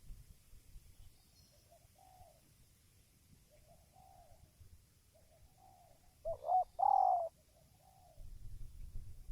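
Spotted dove cooing: a series of short, soft coo notes, the loudest two about six and a half to seven seconds in. A low rumble runs underneath and grows louder near the end.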